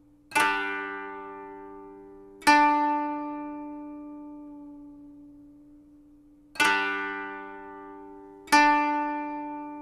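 Background music: four ringing chords from a plucked or struck string instrument. Each starts sharply and fades slowly. Two come near the start, about two seconds apart, and two more in the second half.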